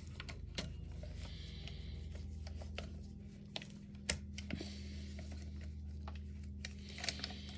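Small scattered clicks and light rubbing of plastic and metal airsoft rifle parts being handled during disassembly, with a sharper click about four seconds in, over a steady low hum.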